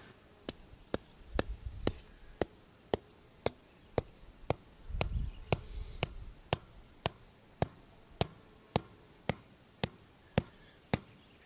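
A 32 oz Tekton rubber mallet strikes the flat head of a 12-inch steel tent stake, driving it into hard, compacted dirt. The blows are steady and sharp, about two a second.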